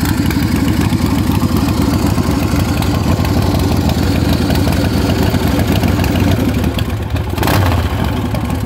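Big Dog Ridgeback chopper's 117-cubic-inch S&S V-twin idling steadily with the choke still on, the engine not yet warm.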